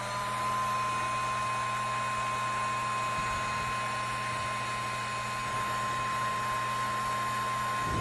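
Electric heat gun running steadily, its fan blowing with a steady whine over a low hum, shrinking heat-shrink tubing over spliced wires.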